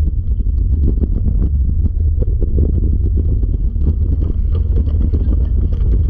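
Dryland dog-sled rig rolling along a dirt trail behind a three-dog team: a steady, loud, low rumble from the wheels, with wind buffeting the microphone.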